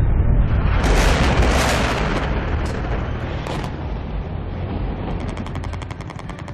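Sound-effect booms of explosions with a deep rumble that slowly fades, then a fast run of gunshots near the end, as part of a radio programme's closing jingle.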